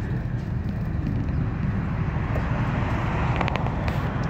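Steady low rumble of an idling vehicle engine, heard from inside the vehicle, with road noise from passing traffic swelling near the end and a few light clicks.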